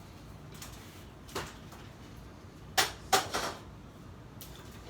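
Kitchen clatter: a few sharp knocks and clacks of hard items being handled, the two loudest close together a little past the middle.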